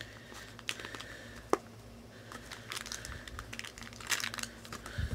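Light crinkling and scattered small clicks of something being handled, one sharper tick about one and a half seconds in, over a faint steady hum.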